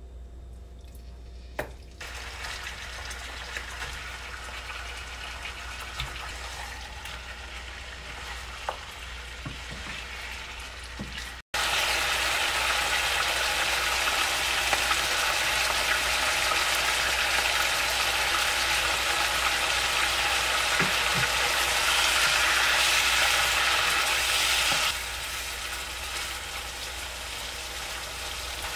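Raw chicken pieces frying in hot oil and ghee in a nonstick pan, a steady sizzle with stirring from a silicone spatula. The sizzle starts about two seconds in as the chicken goes into the oil, grows louder after a brief break near the middle, and drops back a few seconds before the end.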